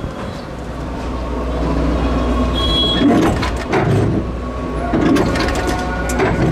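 Tram running with a steady low rumble, and several clattering knocks about a second apart in the second half.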